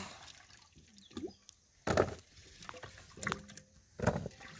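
Peeled cassava roots being washed by hand in a metal saucepan of water: hard roots knocking against the pot and each other in a few sharp clunks, the loudest about two seconds in and again near the end.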